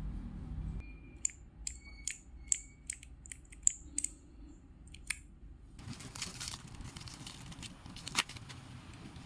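Keys of a four-key mechanical keyboard keychain being pressed one after another: about a dozen sharp, irregular clicks, some with a short ringing ping. From about six seconds in comes softer handling noise with a few more clicks, one louder click just after eight seconds.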